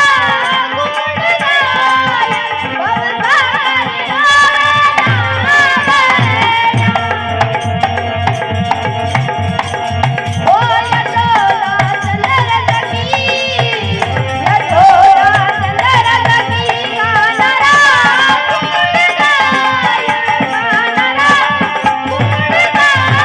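Rajasthani folk devotional music: a wavering melodic line over hand-drum strokes, in a stretch with no sung words.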